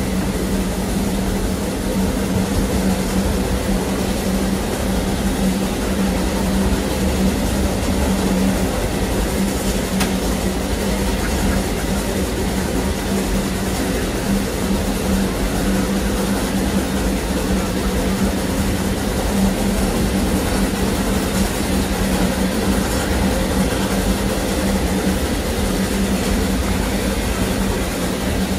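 Dixiana, a Lima Shay geared steam locomotive, and its train running along narrow-gauge track, heard from aboard: a steady rumble with a constant low hum.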